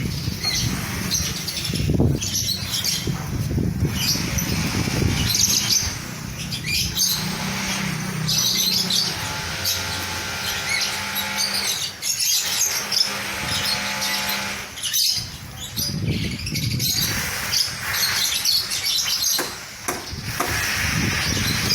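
A flock of lovebirds chirping and screeching continuously, with many overlapping high calls. A steady hum with several pitches runs underneath for several seconds in the middle.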